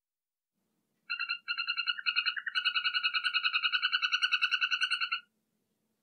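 Golden poison frog (Phyllobates terribilis) calling: a rapid, buzzy trill of about nine pulses a second. It comes in a few short bursts about a second in, then runs steadily for under three seconds and stops.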